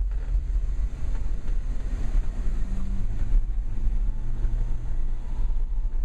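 Old Dodge truck's engine running, heard from inside the cab as a steady low rumble. A steadier engine tone comes in about two and a half seconds in and holds until near the end.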